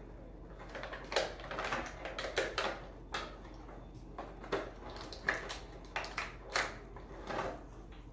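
Clear plastic blister tray and cardboard packaging being handled and pulled apart: an irregular run of sharp plastic clicks, crinkles and rustles.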